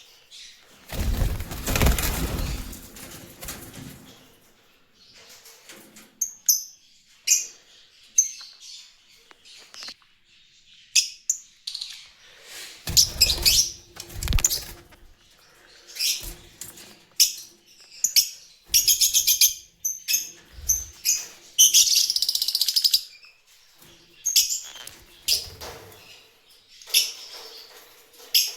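Caged lovebirds giving many short, sharp, high chirps, broken by several loud bursts of wing flapping.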